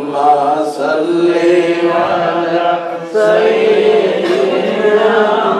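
A man chanting a religious recitation in long, drawn-out melodic phrases with held notes, pausing briefly about three seconds in.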